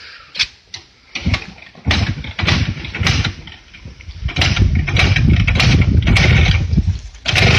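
Motorcycle engine being started: a few short firing bursts and coughs, then it catches and runs unevenly for about three seconds before stopping abruptly near the end.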